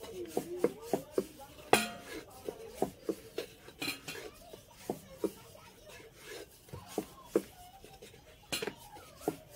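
Wooden rolling pin knocking and clattering on a round wooden rolling board as a stuffed potato paratha is rolled out: irregular light knocks and clicks, with one louder knock about two seconds in.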